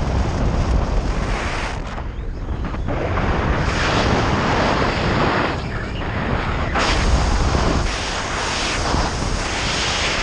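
Wind and rushing airflow buffeting the microphone of a speed-flying pilot's camera, surging and easing in gusts.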